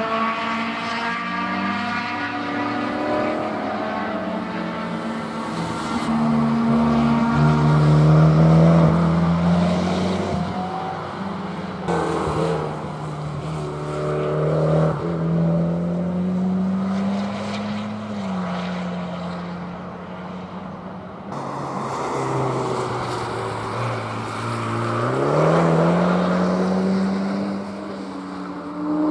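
Race car engine driven hard through a series of corners, its pitch climbing under acceleration and dropping back for braking and gear changes several times over.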